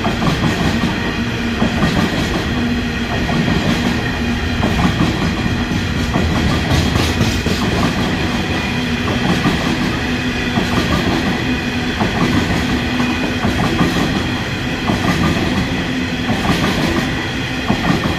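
A coal train's loaded-looking hopper wagons rolling past, a steady heavy rumble with clickety-clack of the wheels over the rail joints. The rumble eases near the end as the last wagons go by.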